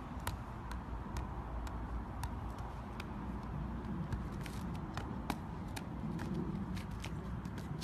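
A football being juggled and kicked: a run of sharp taps as the ball strikes foot and leg, about two a second and unevenly spaced, over a low steady background rumble.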